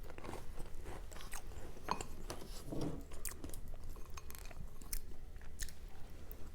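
A person chewing food close to the microphone, with irregular small crisp clicks and crackles of the mouth and food.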